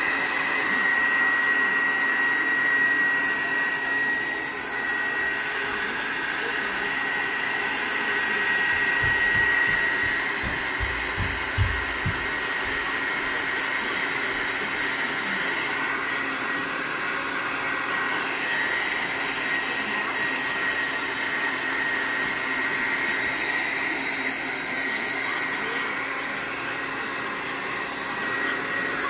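Handheld hair dryer running steadily, blowing air, with a steady high-pitched whine. A few brief low bumps come near the middle.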